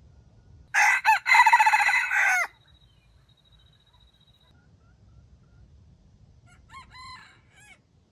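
Red junglefowl rooster crowing: one loud, short crow with a brief break near its start, then a second, much fainter crow near the end.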